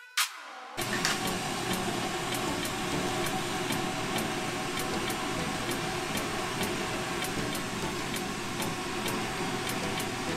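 Glassblowing bench torch burning with a steady rushing hiss of flame while its gas pressures are adjusted for an even combustion ratio, with a light regular ticking two or three times a second. The hiss starts abruptly about a second in, as a bit of music stops.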